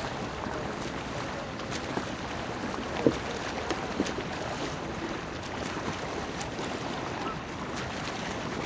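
Water sloshing and splashing around a kayak out on open water, with wind buffeting the microphone. A few brief splashes or knocks come through, the loudest about three seconds in.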